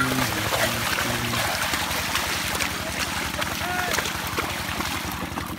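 A pair of bullocks dragging a wooden leveling board through flooded paddy mud: steady sloshing of water and mud, with wind on the microphone. A man's voice calls out with a few held notes during the first second and a half.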